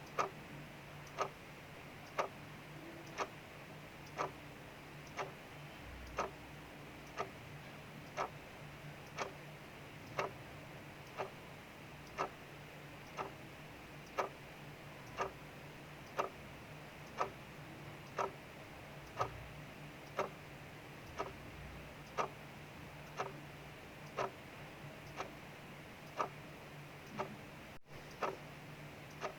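Mechanical clock ticking steadily about once a second, over a soft even hiss of rain falling outside.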